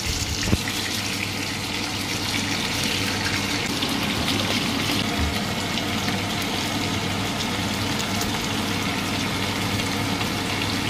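Chunks of spice-coated meat sizzling steadily in hot oil in a non-stick pan, with a constant hiss and fine crackling of the fat. A plastic spatula knocks against the pan once about half a second in.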